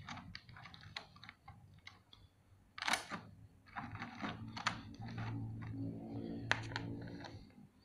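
Clear plastic blister tray being handled: a run of light plastic clicks and rattles as small action-figure parts are picked out of it, with a louder crackle about three seconds in.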